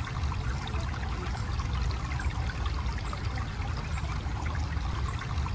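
Steady outdoor background noise: a low rumble with a rushing, trickling hiss over it, unbroken throughout.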